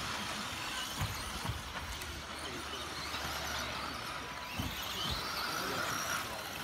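1/10 scale electric RC buggies with Tamiya Sport Tuned brushed motors racing on a dirt track: a whine that rises and falls as the cars accelerate and slow, with several short thumps.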